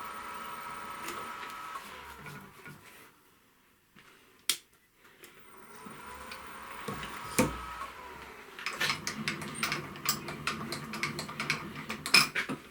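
A machine's motor whine stops about two seconds in. Then come a couple of sharp metallic clicks, and from about nine seconds a rapid run of clicks and ticks from hand tools handled around the freshly started tap.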